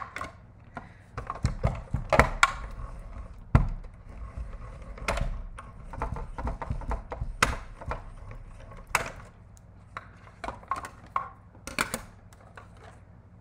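Manual hand-cranked die-cutting machine in use: plastic cutting plates clack into place, then the crank is turned to roll the plate sandwich through the rollers with a low rumble and knocks, cutting a die through two sheets of thin patterned paper. Scattered clicks follow as the plates are handled.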